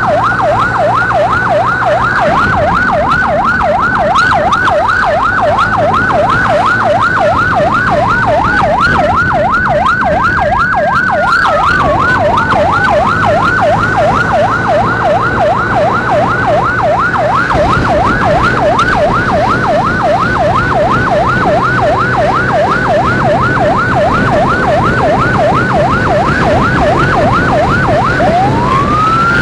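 Emergency siren yelping fast, about three up-and-down sweeps a second, with a slower wailing sweep rising and falling over it a few times, the last near the end.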